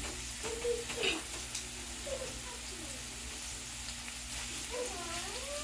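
Meat and chopped onion sizzling steadily in a frying pan on a gas burner, with tongs moving in the pan near the end as the pieces are turned.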